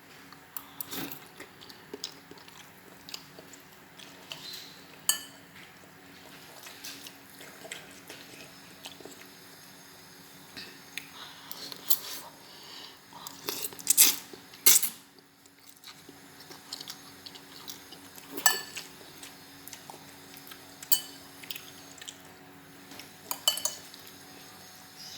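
Metal cutlery clinking and scraping against a dish in scattered light taps, with a few louder clinks about halfway through, over a faint steady hum.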